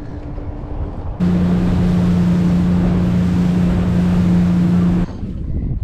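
A Yamaha 200 outboard motor running at speed: a steady low drone with wind and rushing water from the wake. It starts suddenly about a second in and cuts off suddenly near the end, after a quieter steady hum.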